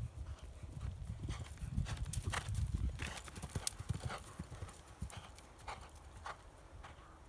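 Hoofbeats of a horse cantering on turf, a run of dull thuds that grows loudest as the horse passes close, about halfway through, then thins out toward the end.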